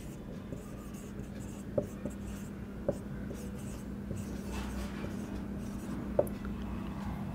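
Marker pen writing on a whiteboard: faint rubbing strokes with a few light ticks of the tip against the board, over a steady low hum.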